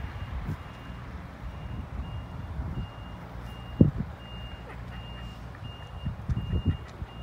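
Reversing alarm on construction plant beeping steadily, a short high beep about every three-quarters of a second, over the low running of diesel excavator engines. One loud low thump about four seconds in.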